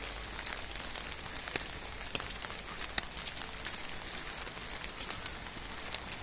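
Light rain pattering: scattered drops tick irregularly over a steady hiss.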